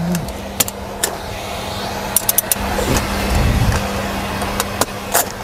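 Metal fastenings on the side of a chip-hauler trailer being undone by hand, clicking sharply several times over a steady vehicle engine hum, with a heavier low rumble about midway.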